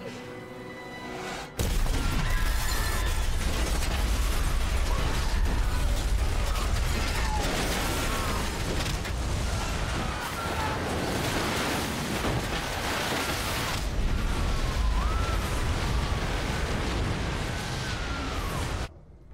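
A sudden massive crash, then a long, loud, continuous rush and rumble of seawater and debris bursting into a ballroom, with high wavering screams over it. The noise drops off abruptly near the end.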